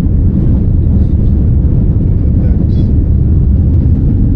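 Airliner cabin noise during the takeoff climb: a loud, steady, deep rumble of the engines and rushing air.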